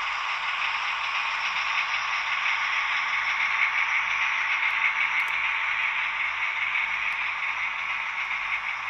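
H0-scale model train, a small diesel locomotive pulling freight cars, running along the track: a steady whirring rush of the motor and the wheels rolling on the rails.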